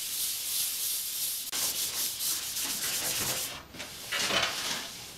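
Hand-sanding a wooden longboard deck with sandpaper wrapped over a sponge: a steady rasping hiss of back-and-forth strokes, with a brief break about a second and a half in. This is the final smoothing of the deck before varnishing.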